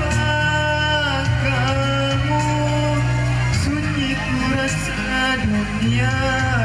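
A man singing into a handheld microphone over backing music, his voice holding and bending long notes.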